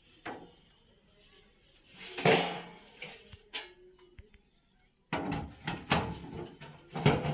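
A few knocks and clicks, then a louder clatter about two seconds in, and dense knocking and clattering from about five seconds on: things being handled.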